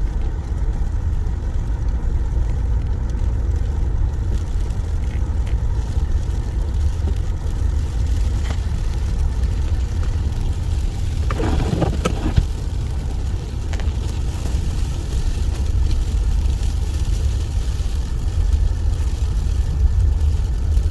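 Steady low rumble of a car's engine and tyres on a snow-covered road, heard from inside the cabin while driving slowly.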